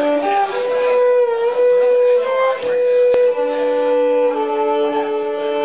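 Live bluegrass band of fiddle, upright bass, acoustic guitar and banjo playing an instrumental opening, with the fiddle carrying the tune in long held notes, at times two at once. A single sharp click about three seconds in.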